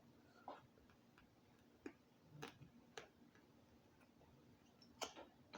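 Faint, sparse wet mouth clicks and smacks from someone chewing food close to the microphone, about five over the few seconds.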